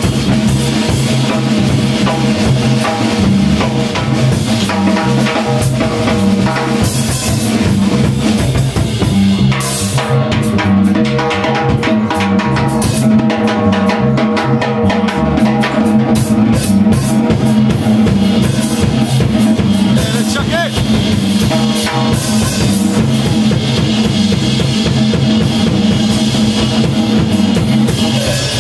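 Live jazz drum kit played with snare, bass drum and cymbals over a plucked upright bass.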